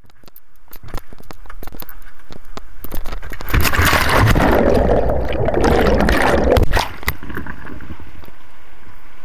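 River whitewater rushing and splashing right at a kayak-mounted action camera, with many sharp knocks and splashes on the housing. The rush swells loudest through the middle, the camera dunked in the water, then drops suddenly to a steadier rush of rapids.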